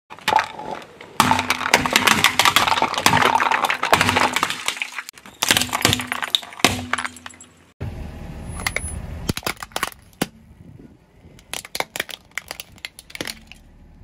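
Car tyre rolling over thin plastic bowls, crushing them: a dense run of cracking and snapping plastic, then a few separate snaps. After a cut, a car tyre crushing a small hard plastic toy toilet: scattered sharp cracks over a low rumble.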